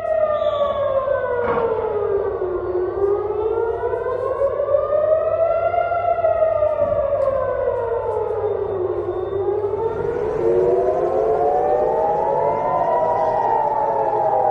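Civil defence air raid sirens wailing, warning of an incoming missile. The pitch slowly falls and rises over several seconds at a time, and from about ten seconds in several sirens overlap, slightly out of step with one another.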